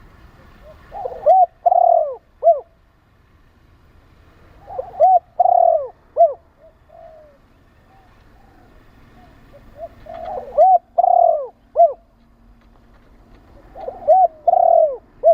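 Spotted dove cooing: four phrases of its song a few seconds apart. Each is a quick pair of coos, a longer coo and a short closing coo, the last phrase cut off at the end.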